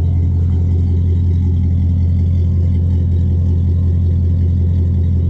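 Pickup truck engine idling with a steady low hum.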